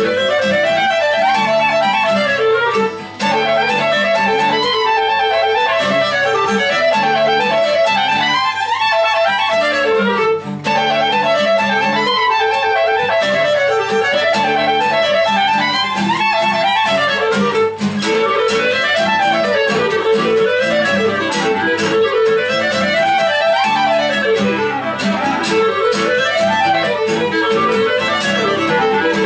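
Live acoustic trio of violin, clarinet and acoustic guitar playing a fast folk-style tune, with quick runs of notes rising and falling.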